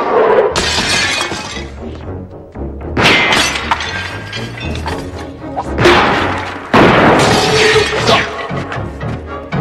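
DJ-mixed music with a steady low beat, broken by about five loud, sudden crashes from the film's soundtrack: gunshots and shattering glass as a pistol is fired across a room.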